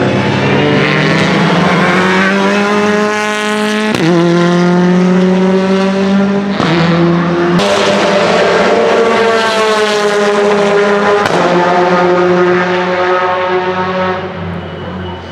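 Alfa Romeo Giulietta Veloce TCR race car's 1.75-litre turbocharged inline-four accelerating hard. The revs climb and drop sharply at each upshift, several times, and the sound fades near the end as the car pulls away.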